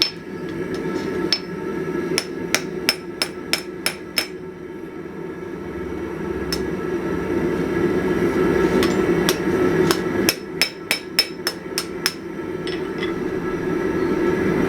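Hammer blows on steel flat stock, rounding a hinge knuckle: a quick run of about six strikes a couple of seconds in, and another run of about eight strikes a few seconds later, over a steady low rush.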